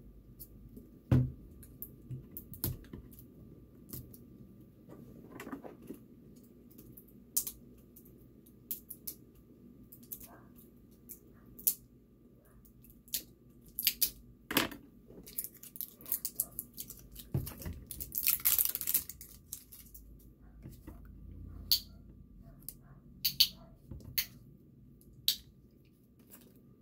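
Scattered small clicks and knocks of containers and utensils being handled on a tabletop, with a short rustling noise a little past halfway.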